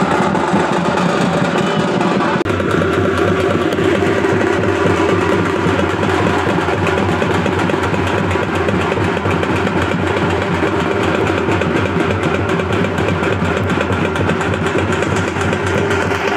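Loud, dense din of dappu frame drums beaten rapidly in a street procession, with a steady low hum underneath from about two and a half seconds in.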